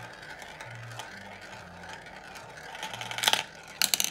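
Glass marble rolling round the plastic funnel of a marble run, a steady whirring roll. Near the end come two bursts of sharp clattering clicks, the loudest sounds here.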